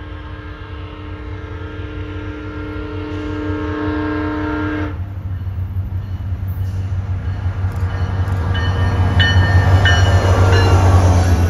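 Train horn sounding one long chord that cuts off sharply about five seconds in, followed by the train's low rumble growing steadily louder as it comes closer, with a few short high-pitched tones near the end.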